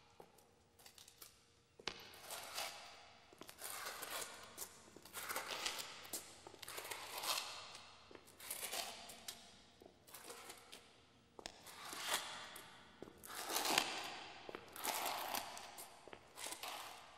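A floor being cleaned by hand: a series of rough scrubbing strokes, roughly one a second, each a short, scratchy swish that rises and fades, some stronger than others.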